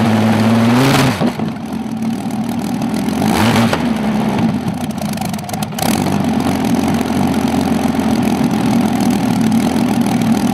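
Rolls-Royce Meteor V12 tank engine running. It holds a steady note, drops back about a second in, revs up briefly about three and a half seconds in, then settles to a steady run.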